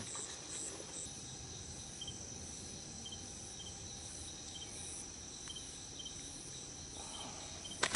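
Night insects chirping: a steady high trill with short, high chirps repeating about twice a second. A sharp click near the end.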